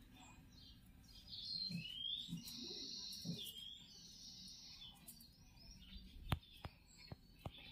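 Small birds chirping for a few seconds, faintly, with a few short sharp taps near the end.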